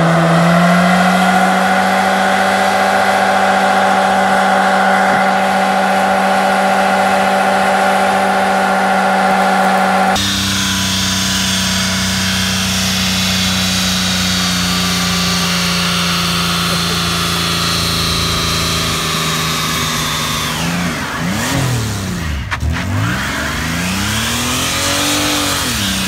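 Car engines held at a steady pitch during burnouts, the drive wheels spinning in tyre smoke; about ten seconds in it cuts to a Chevrolet minivan's engine doing the same. Near the end the minivan's sound swirls down in tone and back up.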